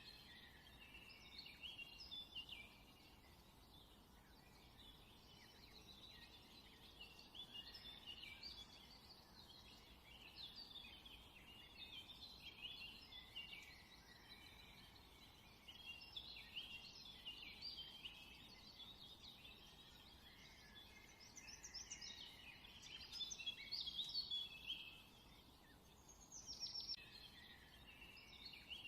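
Faint, continuous chirping of many small birds, busy and overlapping, with a few louder spells and one quick falling note near the end.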